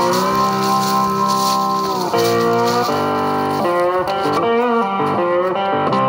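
Background music led by guitar, with held notes that bend and glide in pitch.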